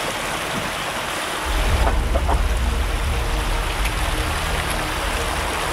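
Steady rushing outdoor noise, joined about a second and a half in by a heavy, uneven low rumble of wind buffeting the microphone.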